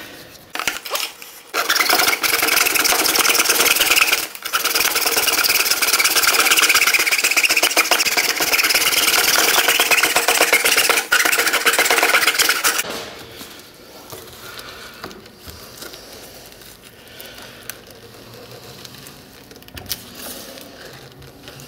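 Hacksaw cutting through the hard plastic housing of an emissions charcoal canister in fast, even strokes. It starts about two seconds in, pauses briefly, and stops about thirteen seconds in, leaving quieter handling of the plastic part.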